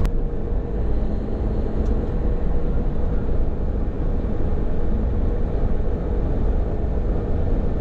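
Hino tractor-trailer truck running at steady speed, its diesel engine and road noise heard from inside the cab as a steady low rumble with a faint steady hum above it.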